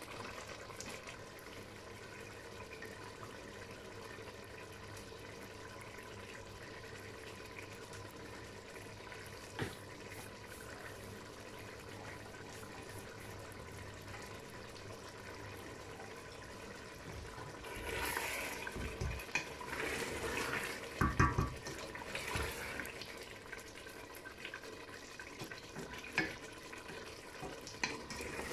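Chicken curry simmering in a stainless steel pot, a steady bubbling hiss. From about two-thirds of the way through come louder bursts of bubbling with a few knocks, and near the end a wooden spoon stirring the curry in the pot.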